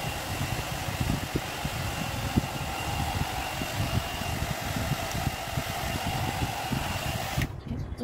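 Agaro volumizer hot-air brush (hair dryer brush) running, a steady rush of blown air with a faint motor whine, cutting off suddenly near the end.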